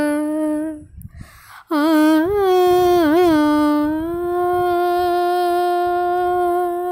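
A woman's solo voice sings the closing phrase of a Carnatic song unaccompanied. She holds a note, breaks off briefly about a second in, then rises into a phrase with a quick wavering ornament and ends on a long, steady held note.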